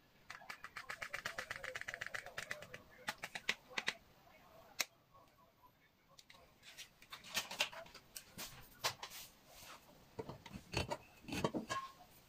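A metal spoon tapping against a paper sachet of instant dry yeast and the sachet rustling as the yeast is shaken out into a glass bowl of flour. A quick run of ticks comes in the first two seconds, then scattered clicks and taps.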